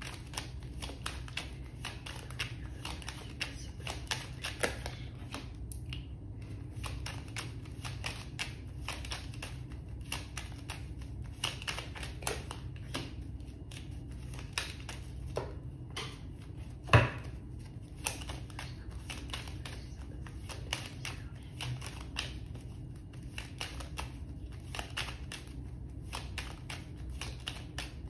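A deck of tarot cards shuffled by hand: a continuous patter of small card clicks and rustles, with one louder knock about two-thirds of the way through. A low steady hum sits underneath.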